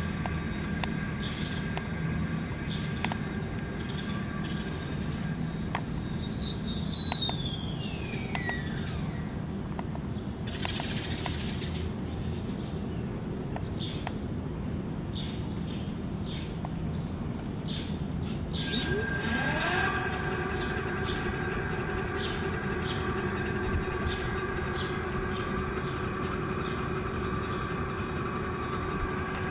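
Electric-bike rear hub motor whining as it runs. Its whine falls away about five seconds in as the motor spins down, then rises again about nineteen seconds in as it spins back up and runs steadily. Faint clicks are heard throughout.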